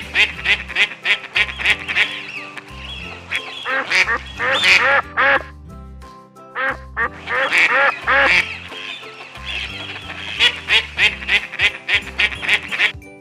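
Duck quacking in quick runs of short calls, four bursts with brief pauses between, over background music.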